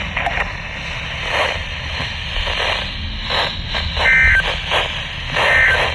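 NOAA Weather Radio reception full of hiss and static, with two short warbling data bursts about a second and a half apart near the end. These are the SAME end-of-message tones that close the required weekly test.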